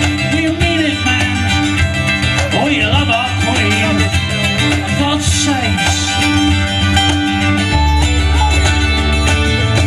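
Live folk band playing an instrumental passage: plucked strings and a gliding melody line over a steady bass, the low end growing stronger near the end.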